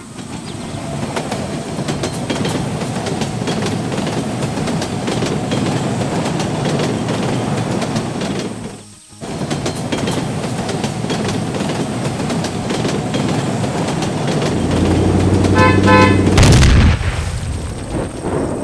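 Heavy machinery running with a dense rattling clatter, cut off briefly about nine seconds in, then a horn blast lasting about two seconds near the end.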